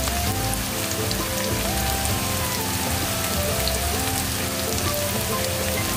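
Sliced shallots and garlic sizzling steadily in hot oil, with scattered small crackles and pops as they sauté. Soft background music plays underneath.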